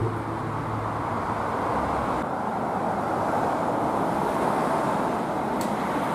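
Steady traffic noise from cars driving past on the street, with no single vehicle standing out.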